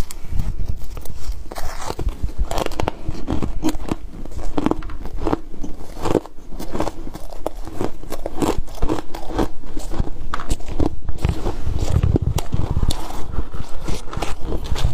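Freezer frost being bitten and chewed close to the microphone: a dense run of loud, irregular crunches and crackles.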